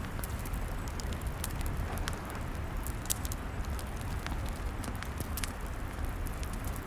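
Log fire burning, with frequent sharp, irregular crackles and pops over a steady low rumble and hiss.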